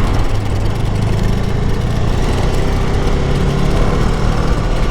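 KTM Duke 250's single-cylinder engine running steadily while the bike is ridden, under a steady rush of wind and road noise.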